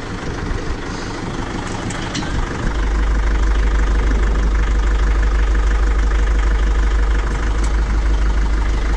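Farm tractor engine running, then rising to a louder, heavier rumble about two and a half seconds in as it is put under load and held there.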